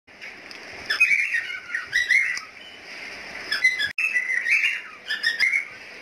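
Birds chirping and calling in short, repeated bursts over a steady background noise, with a brief cut in the sound about four seconds in.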